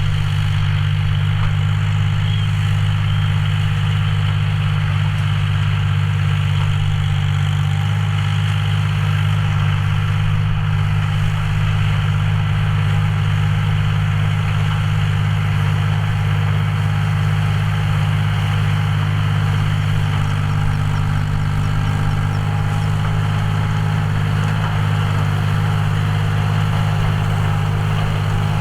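John Deere 5045D tractor's three-cylinder diesel engine running at a steady, even speed under load while ploughing.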